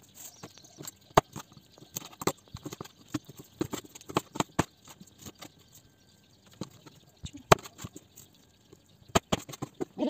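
Kitchen knife cutting fish into pieces on a wooden cutting board: irregular knocks and taps of the blade striking the board. The sharpest knocks come about a second in and again past the midpoint.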